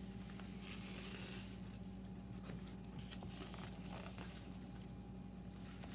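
Faint sounds of people eating and handling food and napkins, a few soft rustles and clicks over a steady low hum.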